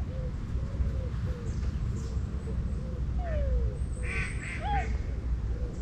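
Ducks calling: scattered short quacks, with a brighter cluster of calls about four seconds in.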